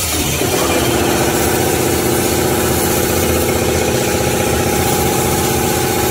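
Automatic band saw cutting machine for maxi toilet-paper rolls running. A steady hum of several held tones sets in about half a second in and stays, over a constant low machine rumble.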